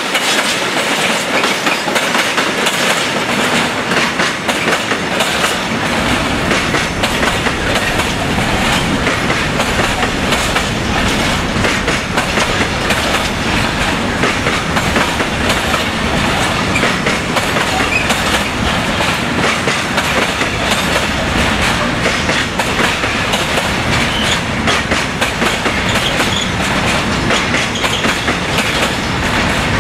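Container freight train rolling past at close range: a steady rumble of wagon wheels on the rails with a continuous run of clicks as the wheels cross rail joints, growing deeper about five seconds in.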